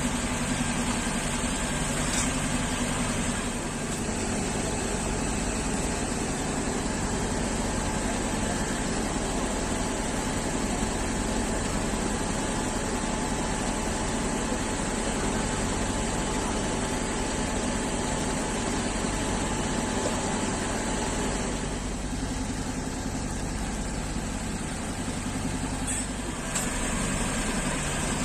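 Fire engine's diesel engine idling steadily, an even low hum that does not change.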